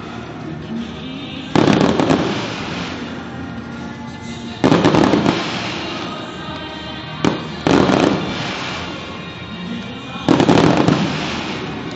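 Aerial fireworks shells bursting, four big booms about every three seconds plus a smaller pop, each fading out in a rumbling, crackling tail. Music plays steadily underneath.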